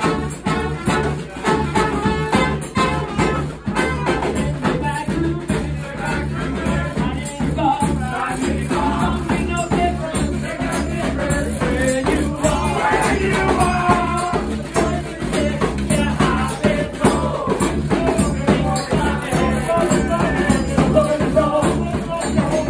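A live New Orleans-style brass band playing an up-tempo number: trombone, saxophone, trumpets and sousaphone over a fast, steady rhythm scraped on a metal washboard vest.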